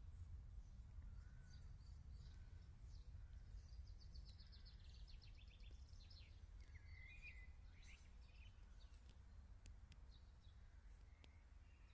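Near silence: faint songbirds calling, with a rapid trill about four seconds in and scattered chirps after it, over a low steady rumble.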